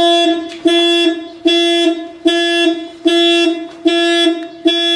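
Car alarm sounding through a horn: one steady pitched honk repeating in an even rhythm, just over once a second, about seven honks.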